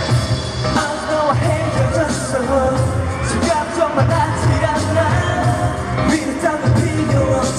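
K-pop song with singing over a heavy, steady bass beat, played loud through a concert sound system and recorded from the audience.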